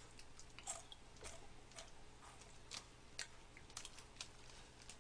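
Faint crunching of crisp snacks, potato chips among them, being chewed, heard as scattered, irregular sharp crackles.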